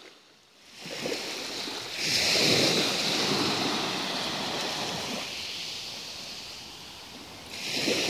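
Small Black Sea waves washing up onto a sand-and-shell beach, a steady surf wash with some wind on the microphone. It jumps louder about two seconds in and slowly eases off, then swells again near the end.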